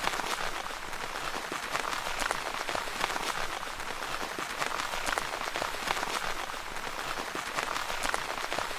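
Steady rain pattering on a tent's fabric, a dense hiss of many small drop ticks.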